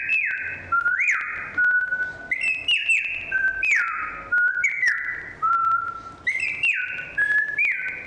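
A girl imitating birdsong, producing it in her throat without using her lips: high whistled notes, about one a second, each sliding down in pitch and then holding, with short sharp chirps between.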